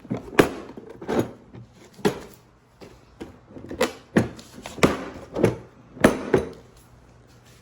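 Irregular knocks and clunks of tools and parts being handled as a dirt bike is taken apart, about a dozen sharp hits, each with a brief ring.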